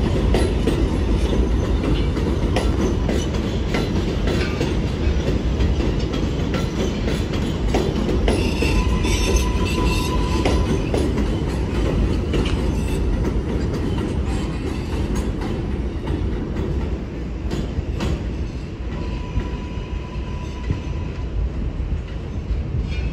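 New York City subway train of R142-series cars running on elevated track, wheels clacking over the rail joints with a steady rumble. Short high wheel squeals come about ten seconds in and again about twenty seconds in.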